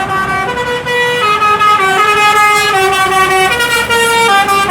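Bus telolet basuri horn playing a tune: a string of loud, held musical horn notes stepping up and down in pitch, changing every quarter to half second.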